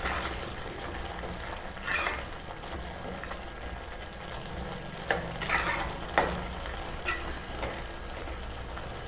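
Flat metal spatula scraping and stirring grated bottle gourd halwa in a steel kadai, over a steady sizzle from the sugary milk-and-ghee mixture bubbling as it cooks down. Several louder scrapes stand out, about two seconds in and again between five and six seconds.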